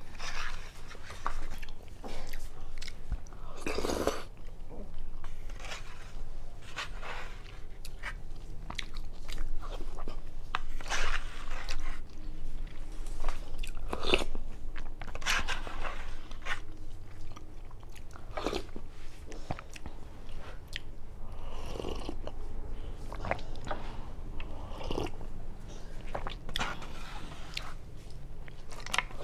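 Close-up eating sounds: soup taken from a plastic spoon and a foam cup in short slurps a few seconds apart, with chewing in between.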